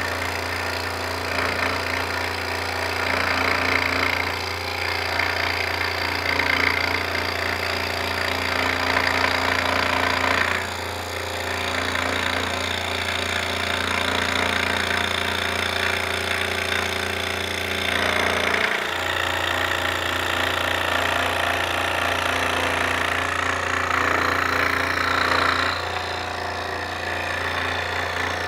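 Electric scroll saw running with its reciprocating blade cutting through a wooden board, a steady motor hum under a rasping cutting noise that swells and eases several times as the wood is fed.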